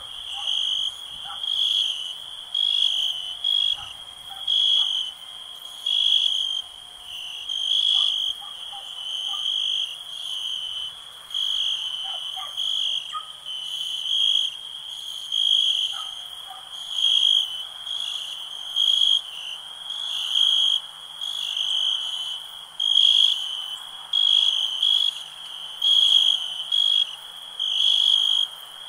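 Nighttime chorus of crickets and frogs: a steady high-pitched trill under louder calls that pulse roughly once a second.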